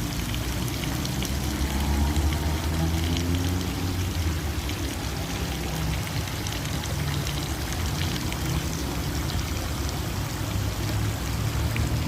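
Water running and splashing steadily, over a low rumble.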